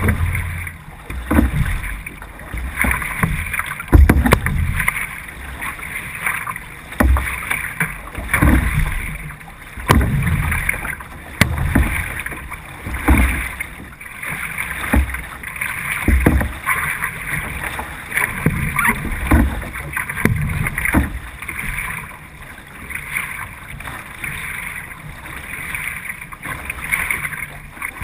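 C1 sprint canoe being paddled hard with a single-blade paddle: a steady stroke rhythm of about one stroke every second and a half, each stroke bringing a deep surge, over water rushing along the hull.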